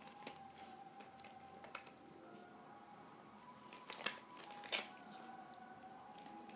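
Dog tearing and crinkling the wrapping off a treat with its mouth: soft rustling with a few sharp crackles, the loudest two about four and nearly five seconds in. A faint steady tone sits underneath.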